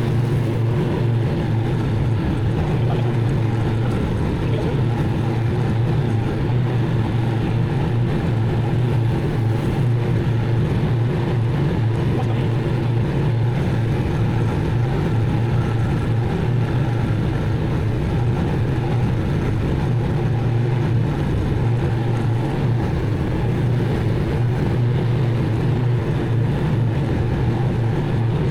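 Zero-turn mower's engine running steadily at an even speed.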